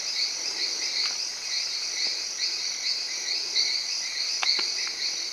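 Forest insects chirping steadily in a high, pulsing chorus, with a rising sweep repeated about twice a second. A few sharp clicks come about four and a half seconds in.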